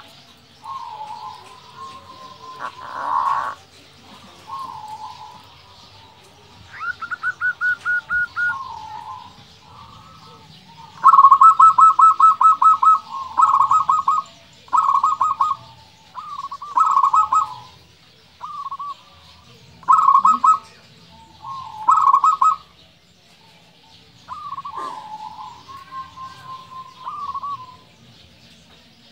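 Zebra dove (perkutut) singing: repeated short phrases of rapid staccato cooing notes with brief pauses between them, loudest about a third of the way in.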